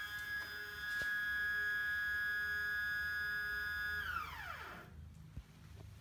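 Stepper motor of a homemade CNC machine driving the bed along the Y axis on a jog move: a steady whine of several high tones that glides down in pitch and dies away about four to five seconds in as the motor decelerates to a stop.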